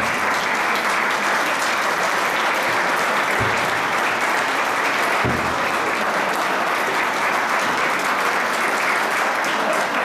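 A crowd of spectators clapping steadily, without a break.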